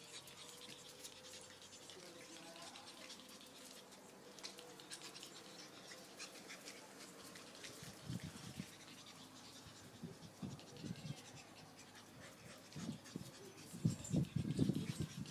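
Pug puppies scrabbling and play-fighting on a concrete floor: a steady patter of claw scratches and clicks. Short low puppy noises and thumps come in from about halfway and are loudest near the end.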